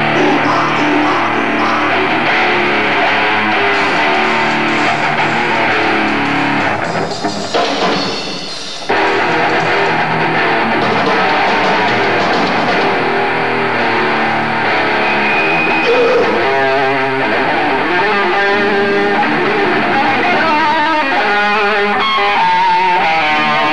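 Death metal band playing live: distorted electric guitars over drums. The sound drops briefly about eight seconds in, then cuts back in at full level.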